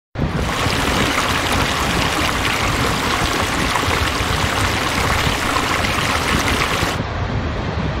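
Steady rush of Niagara's Horseshoe Falls, a dense, even wall of falling-water noise. The highest part of the sound dulls slightly about seven seconds in.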